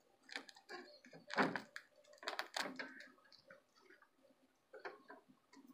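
Protective plastic film being peeled off a plastic RC truck body, crinkling and crackling in irregular bursts.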